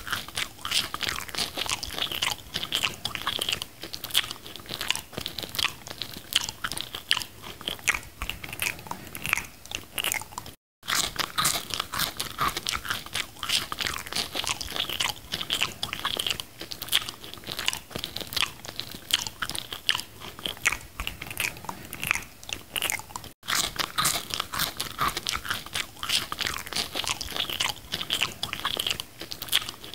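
Close-miked eating sounds: dense, rapid crunching and chewing of fast food. The sound cuts out for an instant twice, about 13 seconds apart.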